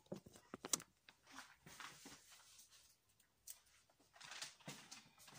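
Faint, scattered light clicks and rustles of hands handling food and kitchen items on a countertop, a little busier near the end.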